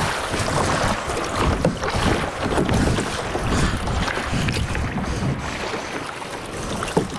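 Wind buffeting the microphone over water sloshing and splashing around a kayak in the surf: an irregular wash of noise with no steady rhythm.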